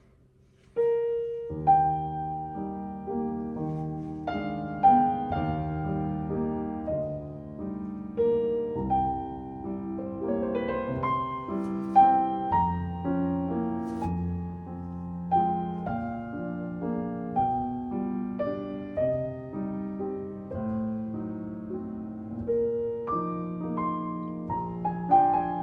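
Piano music: struck notes and chords at a moderate, even pace, starting about a second in.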